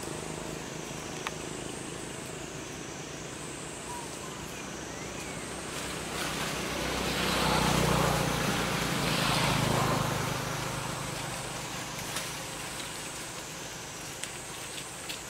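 A motor vehicle passing by, its sound swelling to a peak twice in the middle, over steady outdoor background noise with a high, wavering drone. A few light clicks near the end.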